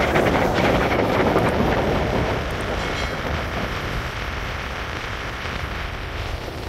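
Strong wind buffeting the phone's microphone on the open deck of a ferry under way at sea, a loud rushing that eases after the first couple of seconds. A steady low rumble from the moving ship runs underneath.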